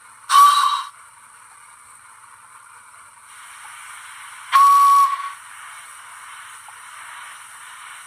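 Model locomotive DCC sound decoder playing LNER steam whistle sounds: a short single-note whistle blast about half a second in, then a second, slightly longer blast about four and a half seconds in, over a faint steady steam hiss.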